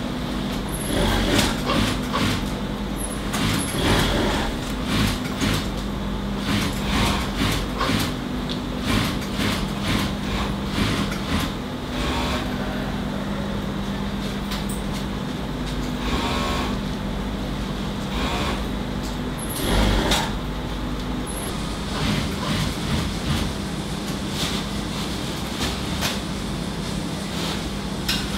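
Garment workshop machinery: a steady hum with a thin high whine, broken by irregular sharp clicks and a few short noisy bursts.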